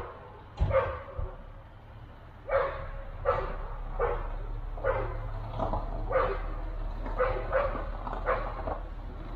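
A dog barking over and over, mostly about one bark a second, with a low steady hum coming in a few seconds in.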